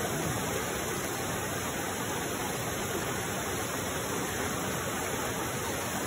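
Creek water rushing over rocks in a steady, even rush.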